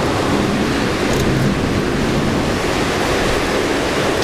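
Heavy thunderstorm rain, a steady loud rushing hiss.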